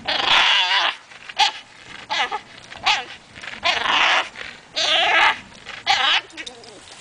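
French bulldog growling through clenched jaws while hanging from and tugging on a rope toy, in about seven short, separate bursts.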